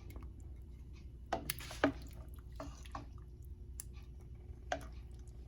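A few scattered soft clicks and wet knocks of kitchen work over a low steady hum, the loudest a cluster about one and a half to two seconds in and another near the end.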